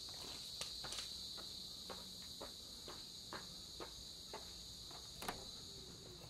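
Insects trilling in a steady, high, even drone, with faint scattered ticks and one sharper click about five seconds in.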